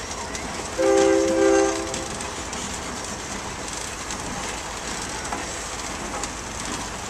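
A train horn sounds a chord of several notes in two short blasts about a second in. Under it runs the steady rolling rumble and clatter of the train passing, the Union Pacific Big Boy steam locomotive's wheels and rods and the freight car ahead of it going by on the rails.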